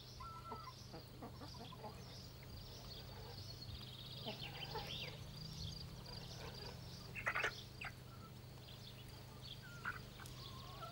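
Domestic chickens making quiet, scattered clucking sounds, with one louder short call about seven seconds in, over a low steady hum.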